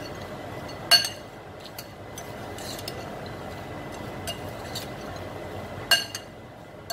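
Metal ladle clinking against a glass bowl while fried okra is stirred: two sharp ringing clinks, about a second in and near the end, with a few lighter taps between.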